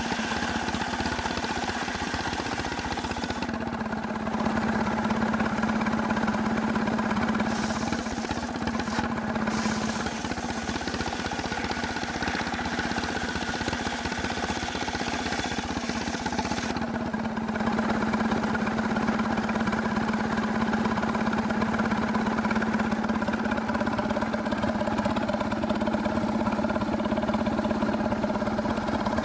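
Engine of a sawmill running steadily under load as it cuts cemara wood that the title calls as hard as stone, with a slight rise in level about four seconds in and again just after the middle.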